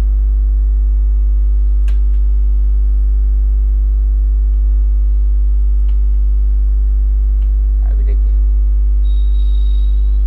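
Loud, steady electrical mains hum: a low buzz with a ladder of evenly spaced overtones. A few faint clicks sound over it, a short voice sound comes about eight seconds in, and a thin high whine starts about nine seconds in.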